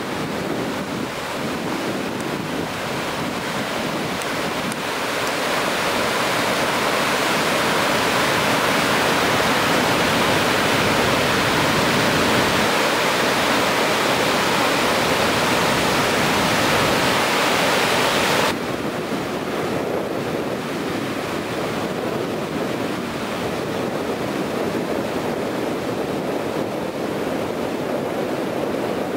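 Ocean surf breaking and washing ashore, with wind buffeting the microphone. The noise swells about a fifth of the way in and drops suddenly about two-thirds of the way through.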